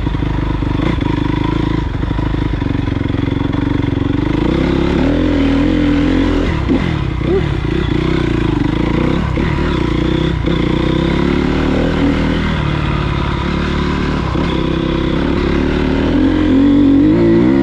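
2013 Honda CRF250R's single-cylinder four-stroke engine running as the dirt bike is ridden, its revs rising and falling, and revving higher and louder near the end.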